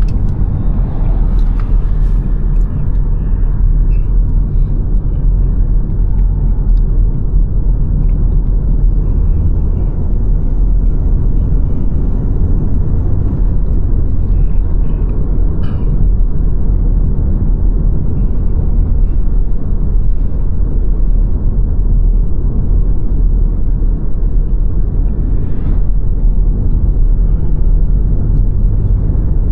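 Steady low rumble of a car driving along the road, tyre and engine noise, with a few faint ticks over it.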